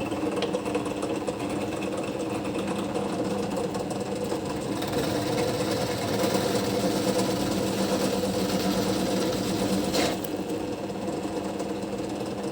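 Drill press running steadily with its motor hum, with one sharp knock about ten seconds in.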